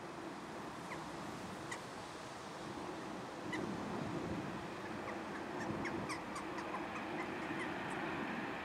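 Boeing 737-800's CFM56-7B jet engines on landing approach, a steady rumble that grows a little louder about three and a half seconds in. Short bird chirps sound over it.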